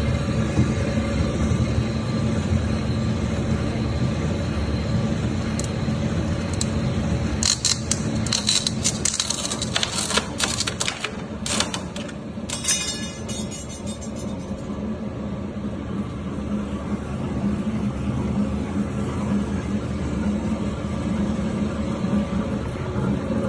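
Motorised sheet-metal beading machine running, its rollers working a steel ring with a steady low hum. About a third of the way in comes several seconds of rapid sharp metallic clicking and scraping.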